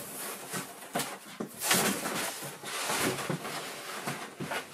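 Rustling and scraping against a large cardboard box, in many short scratchy strokes that fade out at the end.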